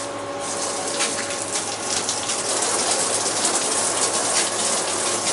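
Flood coolant spraying from a hand-held hose nozzle inside the enclosure of a Tormach 1100MX CNC mill: a steady gushing hiss that comes up about half a second in, over a faint steady hum.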